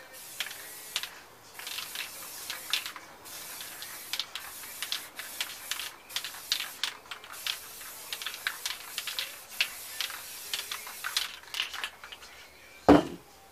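Aerosol spray paint hissing in stop-start bursts, mixed with crinkling clicks from crumpled material being dabbed on the canvas. A single hard knock comes near the end.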